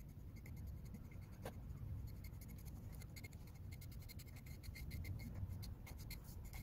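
Deshedding brush raking through a short-haired dog's moulting coat: a run of quick, faint scratching strokes that crowd closer together near the end, as loose undercoat is pulled out.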